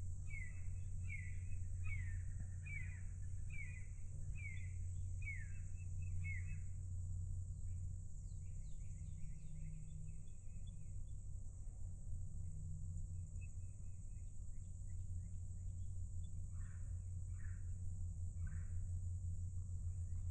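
Wild songbirds singing in woodland: a run of repeated down-slurred whistles, then quick chirps and a short trill, with a few more falling whistles near the end. A steady low hum and a steady high hiss run underneath.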